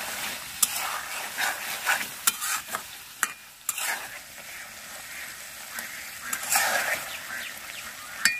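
A steel spatula stirring and scraping through thick koi fish curry in a metal karai, the oily gravy sizzling, with a few sharp clicks of the spatula striking the pan. The curry is in its final stage of cooking.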